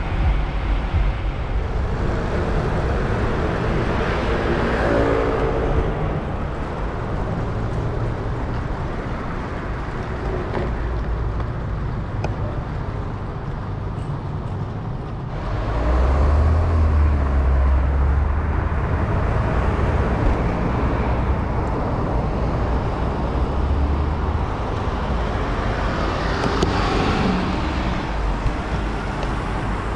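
Busy city road traffic heard from a moving bicycle: motor vehicles running and passing close by over a steady low rumble. A louder, deeper-engined vehicle comes alongside about halfway through, and others pass near the start and near the end.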